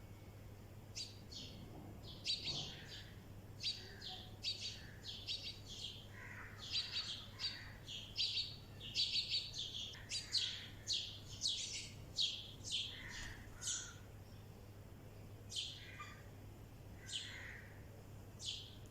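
Birds chirping: a rapid run of short, high chirps for the first dozen seconds or so, thinning to a few scattered chirps near the end, with some softer, lower calls mixed in.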